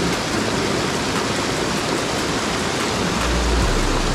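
Small waterfall on a mountain creek: water pouring over a low rocky drop into the pool below, a steady rushing splash. A deep low rumble comes in near the end.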